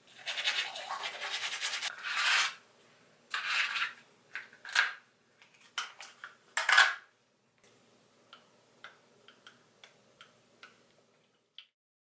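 Dental floss being worked between teeth: several rasping strokes, then a run of small faint clicks.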